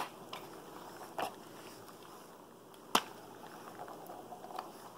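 A capuchin monkey smacking a fuzzy toy against a person's head: three sharp knocks, at the start, about a second in and about three seconds in, with a few faint taps between.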